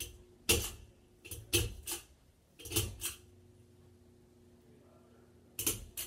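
Pull-chain switches of a Hampton Bay Hugger ceiling fan clicking as the chains are tugged: a run of sharp clicks in the first three seconds and another pair near the end. A steady low hum from the running fan motor lies under them.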